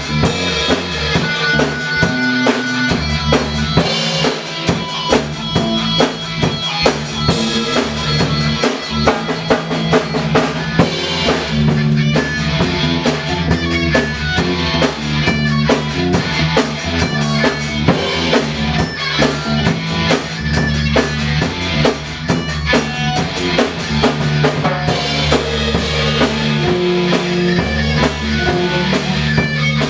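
A live band playing rock music, with electric guitar over a drum kit keeping a steady beat.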